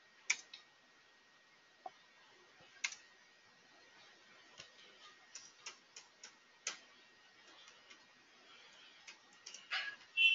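Computer keyboard keystrokes and mouse clicks, faint and irregular, with a louder cluster of clicks near the end.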